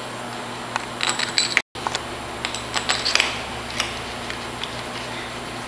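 Light metallic clicks and clinks of steel cylinder-head bolts with brass crush washers being handled and set into the bolt holes of a Denso 10PA A/C compressor's rear cylinder head. They are scattered through the first few seconds, over a steady low hum.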